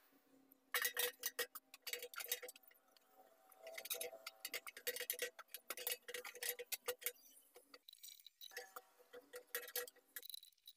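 A hand tool worked quickly against the bare steel of a motorcycle fuel tank, in three runs of rapid light clicks and taps with the hollow tank ringing under them; it stops shortly before the end.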